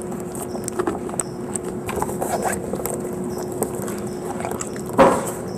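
Dog licking its paw: irregular wet clicking and smacking over a steady hum and hiss, with one louder brief burst about five seconds in.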